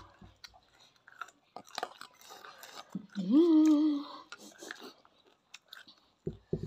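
Close mouth sounds of someone eating noodles: wet chewing and slurping clicks throughout. About three seconds in comes a short closed-mouth 'mmm' hum that rises in pitch and holds for about a second, the loudest sound here.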